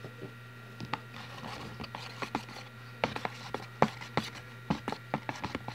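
Spoon stirring a thick, foamy slime mixture of glue, shaving cream and soap in a plastic bowl: irregular clicks, taps and scrapes against the plastic, over a steady low hum.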